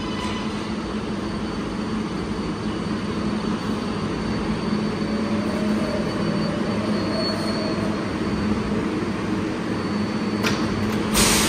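R188 subway train on the 7 line rolling slowly along the platform and braking to a stop, a steady rumble with a low hum. Just before the end there is a short, loud hiss of air as it comes to a halt.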